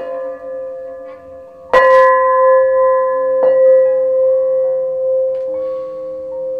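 Small hanging gong struck three times with a padded mallet, the second strike the loudest, ringing on in a long steady tone between strikes.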